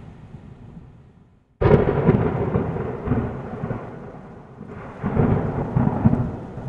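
Deep thunder-like rumbling. A rumble fades out, then a sudden loud crash about a second and a half in rolls away slowly, and a second rumbling swell comes near the end.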